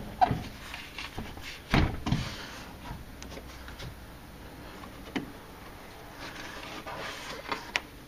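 Clicks and knocks from a Honda Odyssey minivan's power sliding door latch as it is worked and tested, with one louder thump about two seconds in. The latch is not catching properly.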